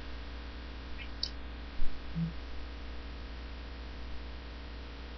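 Steady low electrical hum with faint background hiss, with a brief faint low sound about two seconds in.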